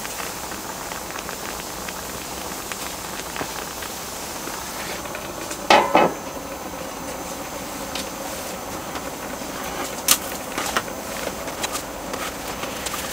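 A large domed aluminium lid is set down onto a cast-iron cauldron-lid griddle with a ringing metal clank about six seconds in. A steady hiss of the simmering kimchi broth runs underneath, with a few sharp clicks later on.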